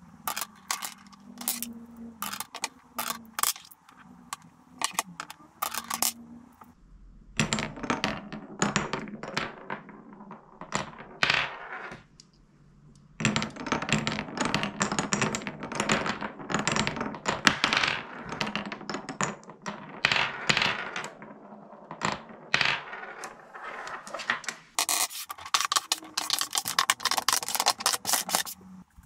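Hard clicking and clacking of solid wooden Cuboro blocks and glass marbles. Sparse block clacks come at the start and near the end. In between are two long runs of dense clicking over a low rumble as marbles roll through the wooden channels and tunnels, with a short pause between them.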